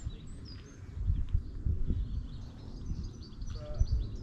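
Small birds chirping and calling repeatedly in short high notes, over an uneven low rumble.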